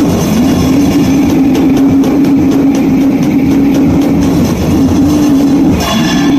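Raw, overdriven goregrind recording: heavily distorted guitar holding a low droning note over drums, everything smeared into a dense, clipped wall of noise. Near the end the texture shifts and higher ringing tones come in.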